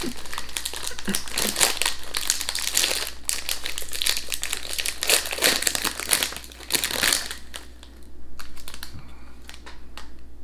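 Walkers crisp packet, a foil-lined plastic bag, crinkling and crackling as it is handled and pulled open by hand. The crackling is dense for about seven seconds, then thins out to a few faint rustles.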